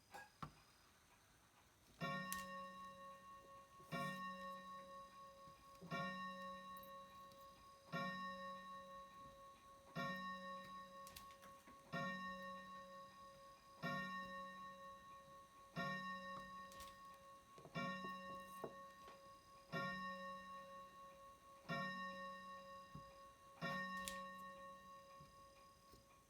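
A soft electronic tone pattern repeats about every two seconds, starting about two seconds in: each repeat opens with a click and a low tone that fades away, over a faint steady higher tone.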